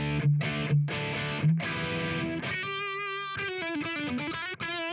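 Distorted electric guitar played through a drive pedal's cab simulator, recorded direct into the interface. A few short, chopped low chords come first, then long single lead notes with vibrato and a bend down.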